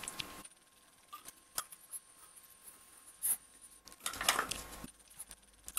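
Faint scattered ticks and crisp little crunches from a small dog hunting for treats and chewing one, with a longer rustle about four seconds in.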